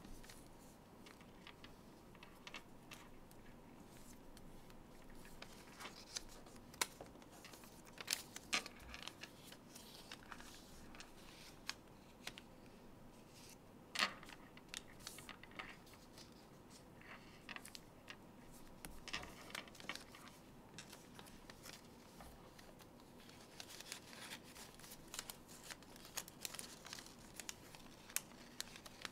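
Origami paper being folded and creased by hand: faint rustling and crinkling, broken by scattered sharp crackles as the folds are pressed, the loudest about halfway through.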